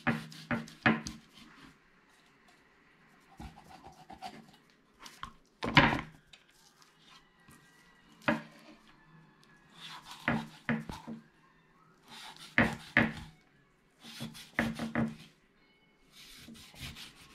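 Cleaver blade scoring slits into a whole pompano on a wooden cutting board: short clusters of knocks and scrapes of the blade against the board every two seconds or so, with quiet gaps between.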